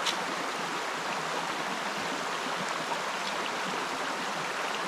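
Creek water running over stones, a steady rushing and babbling.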